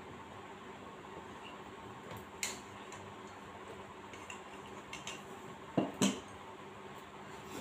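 Chopsticks and a porcelain bowl clinking while noodles are eaten: a few light clicks, then two louder knocks close together about six seconds in.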